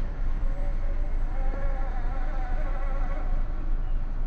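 Brushless motor of a 1/18-scale Furitek Fury Wagon RC rock crawler whining, its pitch wavering up and down as the throttle changes, over a steady low rumble.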